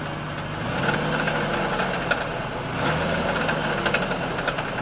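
Ford Taurus engine revved twice from idle, with a rattle heard over it that the owner suspects comes from the exhaust.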